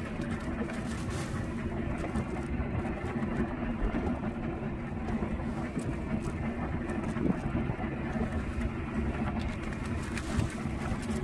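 Small fishing boat's engine running at idle, a steady low hum.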